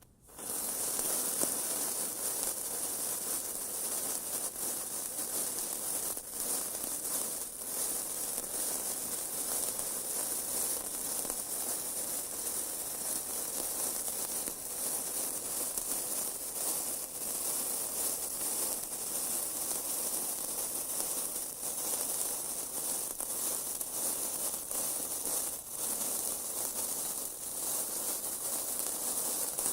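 A lit fuse burning with a steady hiss and fine crackling, catching about half a second in.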